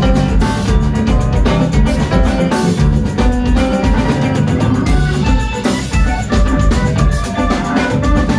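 A funk band playing live and loud: drum kit, electric bass, hollow-body electric guitar and keyboard, with a tambourine shaken along.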